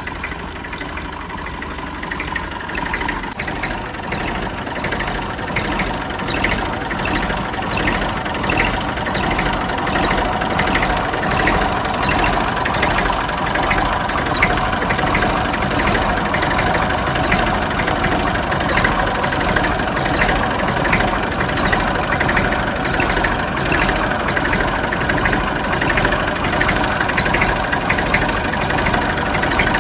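IMT 533 tractor's three-cylinder diesel engine idling steadily with a regular diesel clatter, growing a little louder over the first few seconds. Its fan belt has just been tightened, and the belt noise the owner had blamed on a loose belt is gone.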